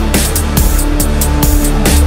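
Electronic music with heavy bass and a steady beat.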